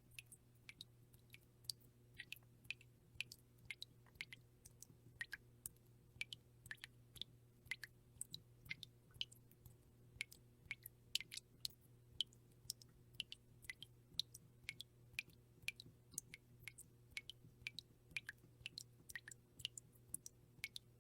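Water drops dripping fast, about three sharp little plinks a second at uneven spacing, over a faint steady low hum.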